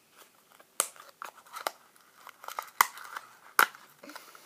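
Tissue paper crinkling and rustling as small cardboard accessory boxes are opened and handled, with several sharp clicks and taps.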